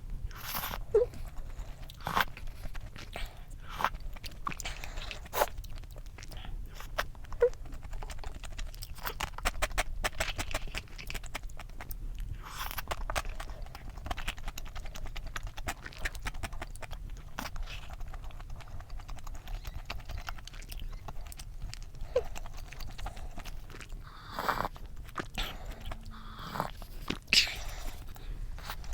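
Close-miked eating of cup noodles and rice: chewing and slurping, with frequent small clicks of utensils against the bowl and a few longer slurps.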